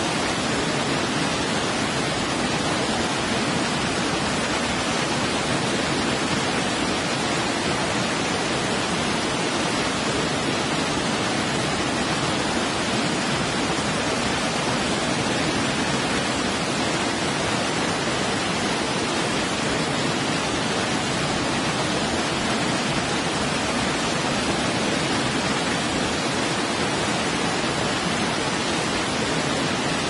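Steady rush of falling water, an even hiss without any change in level.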